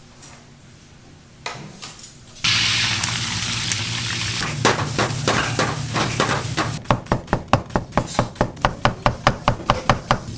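Food sizzling in hot oil, starting about two seconds in, with scattered sharp knocks that become a fast, even run of about five knocks a second in the last few seconds.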